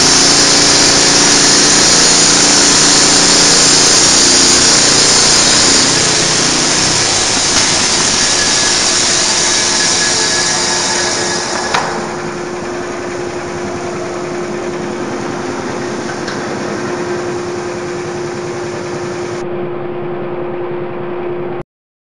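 Y.E.S. YES-700GX band sawmill running and sawing a log, a loud steady machine noise. It drops in level about halfway through and settles into a quieter, steadier hum, then cuts off suddenly near the end.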